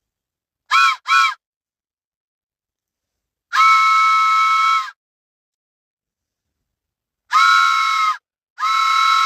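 Train whistle sounding a chord of several tones: two short toots about a second in, one long blast of about a second and a half in the middle, then two more blasts near the end, the last cut off.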